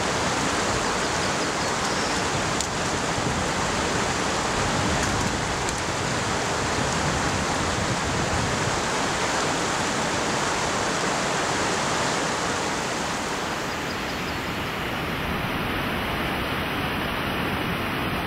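Steady rushing of water pouring over a wide, low river waterfall, an even roar with no break. The high hiss eases slightly about two-thirds of the way through.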